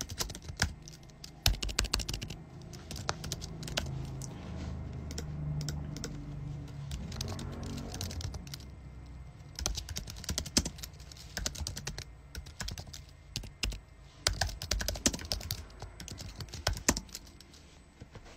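Typing on a computer keyboard: irregular runs of key clicks with short pauses, over a low hum that fades after the first half.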